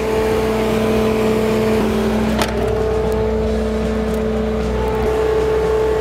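Bobcat compact track loader's diesel engine running steadily at a constant speed. One sharp knock comes about two and a half seconds in.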